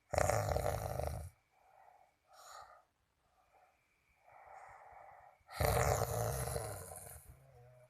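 A sleeping person snoring: two loud snores with a deep rattling rumble, the first about a second long and the second about two seconds, with quieter breaths between them.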